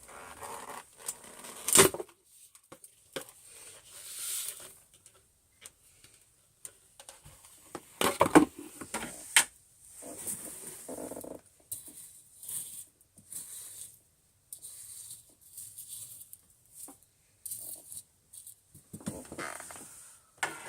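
Dry crunchy debris rustling and crackling as its container is opened and handled, with scattered clicks and a few sharp knocks, the loudest about 2 s and 8 s in.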